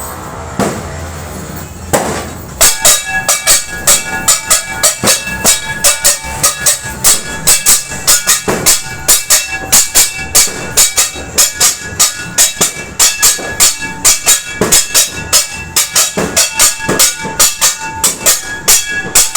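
Metal being banged over and over in a fast, uneven rhythm of about three or four strikes a second, each strike ringing. It is noise-making to drive off bad luck at New Year. The banging starts about two and a half seconds in, after a short stretch of a different, smoother sound.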